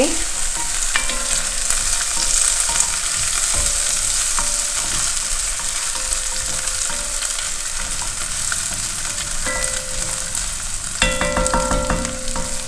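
Sliced garlic sizzling in hot oil in a heavy pot, stirred with a wooden spatula that scrapes and knocks lightly against the pot: the garlic being gently browned to release its aroma.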